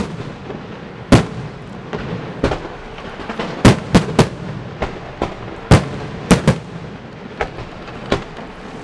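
Aerial firework shells bursting: a dozen or so sharp bangs at uneven intervals, some in quick pairs, over a steady hiss from the display between the reports.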